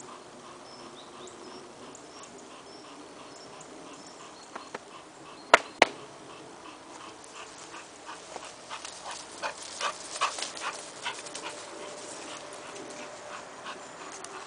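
A bulldog panting and moving through grass and dry leaves close by, its breaths and footfalls coming as a run of short, irregular bursts in the second half. Two sharp clicks stand out about a third of the way in.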